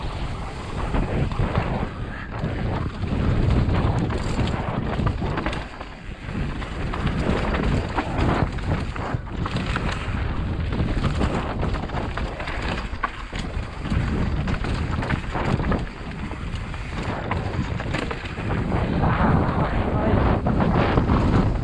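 Wind buffeting the on-bike camera microphone over the clatter of a mountain bike descending a dry, rocky dirt trail at speed, with many short knocks and rattles from the bike and tyres on the rough ground.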